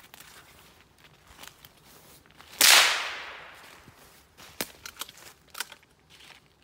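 A single gunshot about two and a half seconds in: a sharp crack whose tail dies away over about a second and a half. Light rustling footsteps before it, and a few sharp clicks or snaps about two seconds after.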